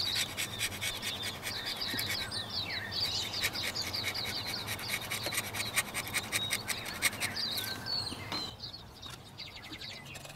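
Stanley knife blade scraping the top deck of a Toyota 1KZ-TE diesel engine block, in quick repeated strokes with a high scratchy squeal. The strokes thin out and grow quieter about eight seconds in.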